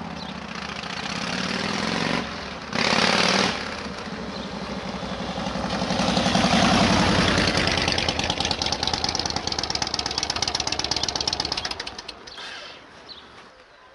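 Yamaha Road Star 1700's V-twin engine as the motorcycle rides past, loudest about six seconds in, then pulling away with a steady pulsing exhaust beat and fading near the end. A brief rush of noise comes about three seconds in.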